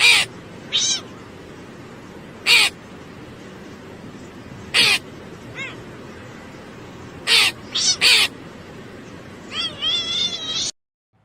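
A cat meowing: short, high-pitched meows every second or two over a steady background hiss, then a quick run of wavering meows near the end.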